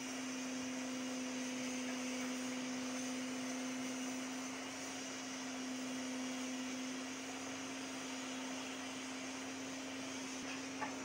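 Steady machine hum: one constant low tone over a background hiss, with a single click near the end.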